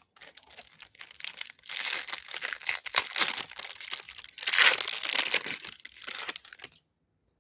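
Clear plastic cello wrapper of a Panini Prizm hanger pack crinkling and tearing as it is pulled open by hand, loudest about two seconds and five seconds in, stopping about half a second before the end.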